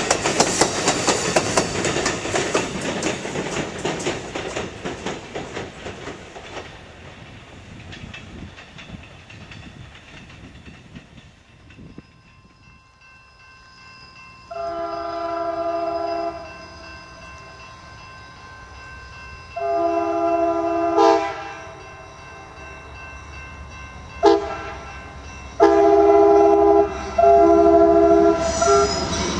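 Amtrak Superliner passenger cars rolling past with wheels clicking over rail joints, fading away over the first ten seconds. Then an approaching Amtrak P42 locomotive's five-chime K5LA air horn sounds the grade-crossing signal: two long blasts, a short one and a final long one, louder toward the end.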